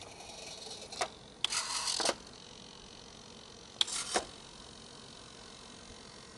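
Miniature radio-control servos in a 1/8-scale Jaguar E-Type model whirring twice briefly as they close the rear hatch and a door, each movement beginning and ending with a small click, with a separate click about a second in.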